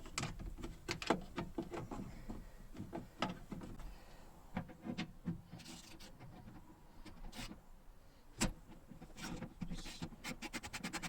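Scattered clicks and knocks of tools and plastic and metal parts being handled inside a car door during lock-mechanism removal. Near the end a fast, even rattle starts up.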